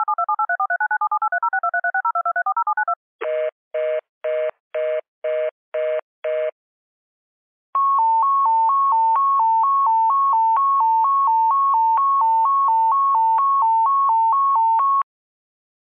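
Electronic emergency-broadcast alert tones: a rapid string of telephone-style touch tones for about three seconds, then seven short low beeps about two a second, then a two-pitch hi-lo alert tone alternating about twice a second for some seven seconds. The tones cut off about a second before the end.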